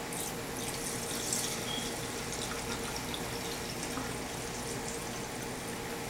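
Descaling solution sloshing and splashing in a small glass coffee carafe.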